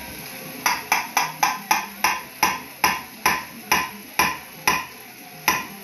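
A measuring cup of thick yogurt rapped against the rim of a stainless steel mixing bowl to knock the yogurt out: about a dozen sharp, ringing metallic taps, quick at first, then about two a second.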